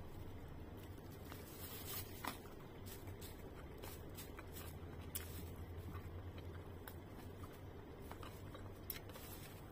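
Quiet eating sounds: chewing, with scattered clicks and scrapes of a plastic spoon scooping rice from the plate, over a faint steady low hum.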